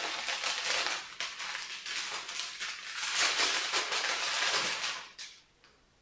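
Brown paper bag of freshly microwave-popped popcorn crinkling and rustling as its folded-over top is unfolded and opened by hand. The crackle cuts off suddenly about five seconds in.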